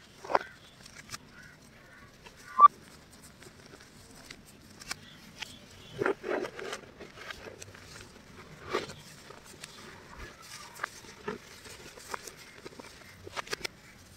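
Hands squeezing, crumbling and sifting clumps of fine white powder. Soft, irregular crunches and pats come and go, the sharpest about two and a half seconds in and a cluster around six seconds.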